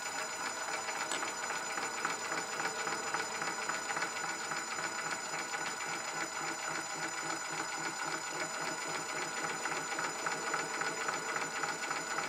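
Metal lathe running at low speed, its spindle and chuck turning with a steady mechanical whir and a fast fine rattle, while a piston casting is pushed true against a copper pad in the toolpost.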